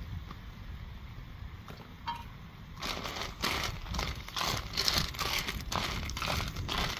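Snails being stir-fried in a metal wok, their shells clattering and rattling against the pan as chopsticks stir them, over a faint sizzle. The clatter starts about three seconds in and goes on in quick irregular clicks.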